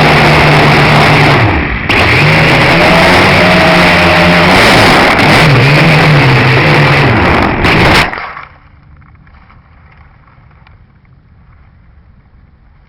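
Dromida Ominus quadcopter's motors and propellers buzzing loudly, the pitch dipping and rising several times with the throttle. The buzz cuts off abruptly about eight seconds in, leaving only faint wind noise.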